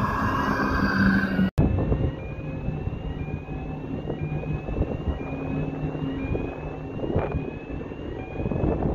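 Steady rumble and hum of the ferry's engines heard from the open deck, mixed with wind noise, with a faint whine that rises over and over. The sound drops out for an instant about a second and a half in.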